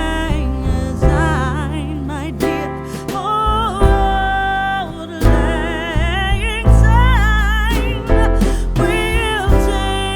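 Music: a song with a wavering sung or lead melody over guitar and a heavy bass line.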